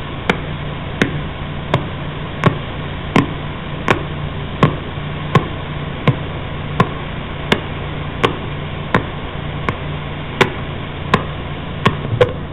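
Radio pulsar signal converted to sound: sharp, evenly spaced clicks, about three every two seconds, each one a pulse from the spinning neutron star, over a steady static hiss with a low hum.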